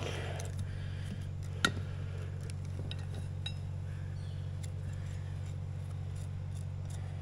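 Light metallic clicks and clinks of a valve stem puller tool handled at a newly seated tire valve stem, with one sharper click about one and a half seconds in, over a steady low hum.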